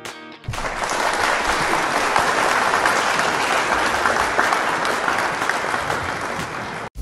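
Audience applauding, loud and dense, starting about half a second in as strummed guitar music stops, and cutting off suddenly just before the end.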